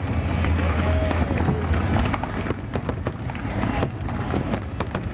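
Aerial fireworks going off in rapid succession: many sharp pops and crackles over a deep, continuous low rumble of bursting shells.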